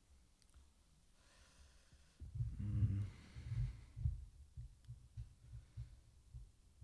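Breath noise and uneven low thumps on a podium microphone as someone leans in close to it, starting about two seconds in and trailing off over the next few seconds.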